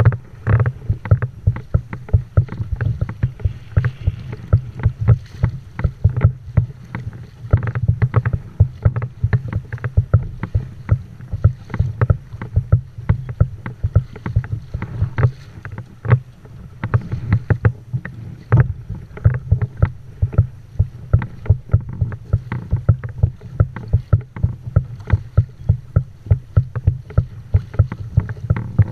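Kayak moving through choppy sea: a rapid, irregular run of sharp slaps and knocks, several a second, as waves hit the hull, over a low rumble of water.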